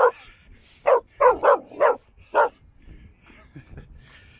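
A dog barking, about six sharp barks in quick succession, stopping about two and a half seconds in.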